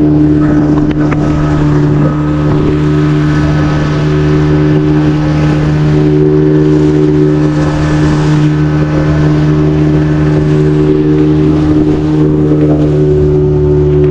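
Boat engine running steadily with a constant hum.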